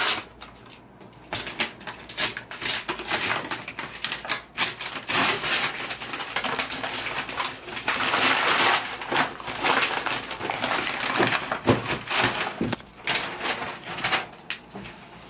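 Brown packing paper and a cardboard shipping box being torn and pulled apart by hand: irregular crinkling, rustling and ripping, loudest about eight seconds in.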